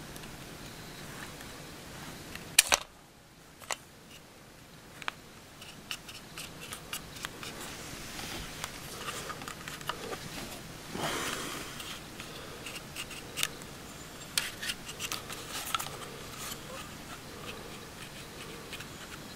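Walther PPQ M1 9mm pistol being handled: a sharp pair of clicks about two and a half seconds in, then scattered lighter clicks and a brief rustle as its controls, including the paddle magazine release on the trigger guard, are worked by hand.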